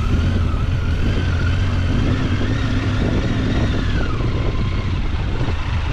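Motor vehicle on the move: steady engine and road rumble with wind noise, and a faint whine that wavers and then falls away about four seconds in.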